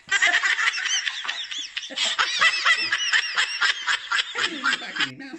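Hearty, high-pitched laughter in a rapid string of peals. It starts suddenly and runs on with hardly a break, and a lower voice joins near the end.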